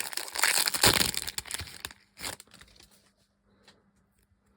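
A trading card pack wrapper being torn open and crinkled by hand, a dense crackling that is loudest about a second in and dies away by two seconds, followed by one more brief rustle.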